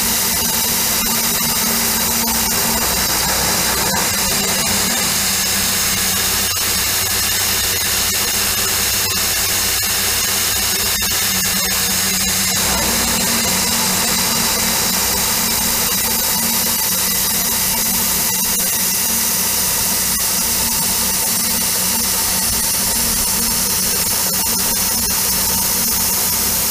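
Vertical milling machine running an end mill through a slot cut, with a steady hiss from the air-driven mist coolant spraying the cutter. The sound shifts slightly about halfway through.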